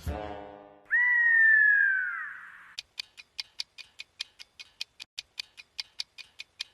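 Cartoon sound effects: a music sting dies away, then a loud whistle-like tone slides downward for about a second and a half. Even, quick ticking like a clock follows, about five ticks a second.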